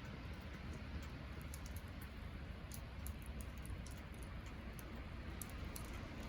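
Campfire wood burning and crackling, with scattered small sharp pops over a steady low rumble and hiss.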